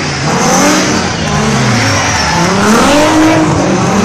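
Race car engines revving up and down, with a high tyre squeal over them.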